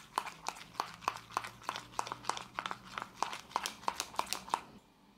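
White glue with food colouring being stirred in a bowl, making sticky clicks at about three or four a second that stop shortly before the end.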